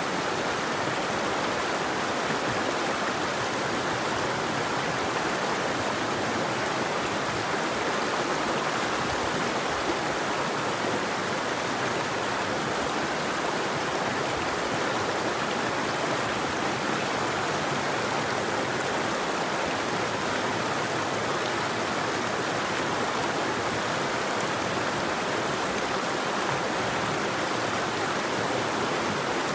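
River water flowing: a steady, unbroken rush of running water.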